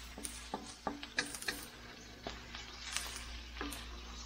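Wooden spatula scraping and knocking against a stainless steel wok while stirring shrimp: irregular clicks and taps, a few a second, over a light hiss.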